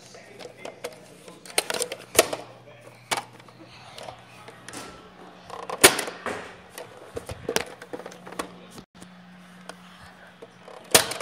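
Irregular clicks and knocks from a handheld camera being carried and handled, the loudest about halfway through and again near the end, over a low steady hum.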